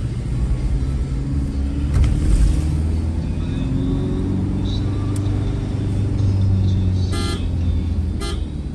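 Vehicle engine running with steady road rumble, heard from inside the cabin, the engine note rising and falling a little. Near the end a horn gives two short toots about a second apart.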